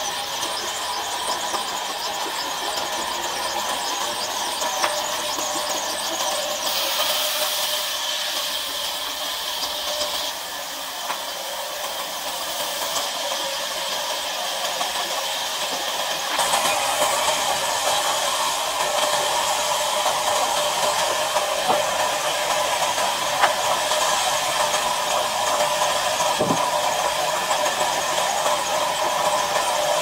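Large log band saw running, its blade cutting lengthwise through a tree trunk: a steady, high, whining mechanical hum with a noisy hiss, which becomes louder about halfway through.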